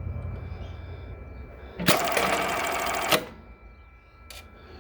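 Jack JK1377 direct-drive button sewing machine running one short button-sewing cycle: rapid, even stitching for just over a second that stops sharply with a click. A single click follows about a second later.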